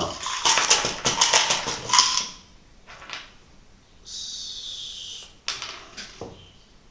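Small metal screws and mounting parts being handled and fitted by hand: a fast clatter of clicks and rattles for about two seconds, ending in a sharp click. Then comes a scrape of about a second and a few single clicks.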